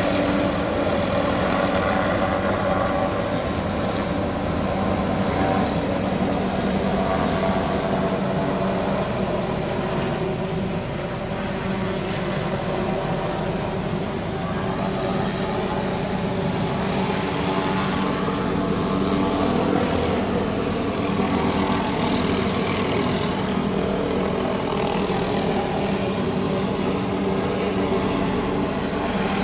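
Helicopter hovering over a power-line easement with a suspended tree-trimming saw: a steady drone of rotor and engine with a stack of steady tones, dipping slightly in loudness about eleven seconds in.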